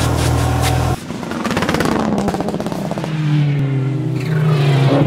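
A truck engine drones steadily and cuts off abruptly about a second in. Then a car engine runs and revs, its pitch rising and falling.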